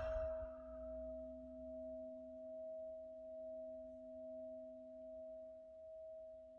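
Crystal singing bowl ringing softly on its own, two steady tones, a higher and a lower, that slowly swell and fade about every second and a half.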